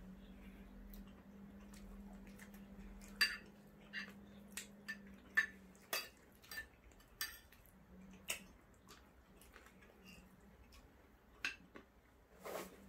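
Spoons and forks clinking and scraping on ceramic plates as two people eat, in scattered sharp clinks from about three seconds in. A low steady hum underlies the first five or so seconds.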